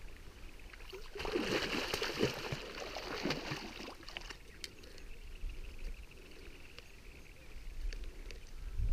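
A hooked sharptooth catfish splashing and thrashing in shallow water at the bank, strongest from about one to four seconds in, then quieter.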